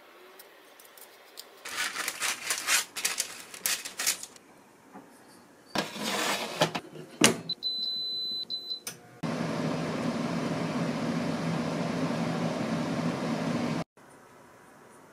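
Knocks and rattles of a wire air fryer basket being handled, then a long single beep from the iNIC air fryer's touch panel as its button is pressed, followed by the air fryer's fan running steadily with a low hum.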